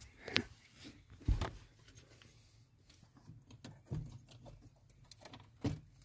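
Scattered light clicks and knocks of handling under the dashboard, as the flasher unit is worked into the fuse panel. The sharpest click comes about half a second in and a duller knock follows about a second later.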